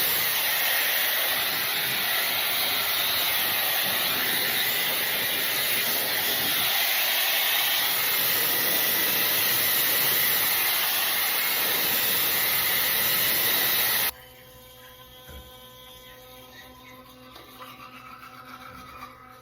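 Steady, loud rushing noise like a blower or running water that cuts off suddenly about fourteen seconds in, leaving a faint steady hum.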